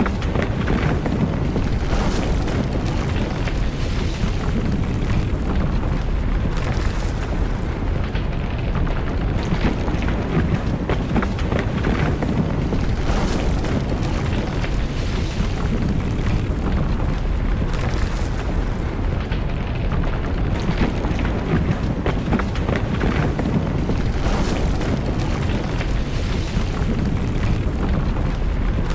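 Earthquake rumble sound effect: a steady deep rumble with irregular brief crashing and rattling every few seconds, standing for strong ground shaking.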